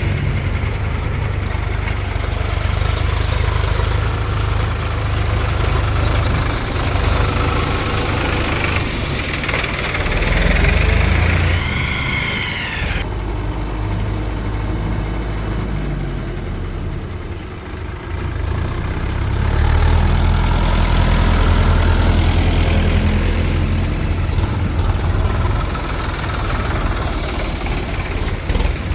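Diesel engine of a JCB 3DX backhoe loader running while it works, getting louder under load about ten seconds in and again from about twenty seconds, with a brief rising-and-falling whine near twelve seconds.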